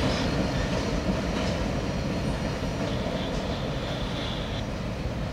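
Freight cars at the rear of a mixed freight train rolling away on the rails, a steady rumble that slowly fades as the train recedes.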